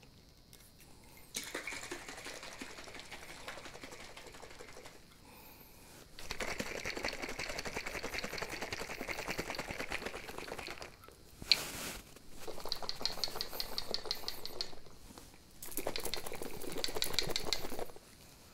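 Heavy cream sloshing in a small jar shaken hard and fast by hand, in four spells with short pauses between them. A single sharp knock falls about halfway through.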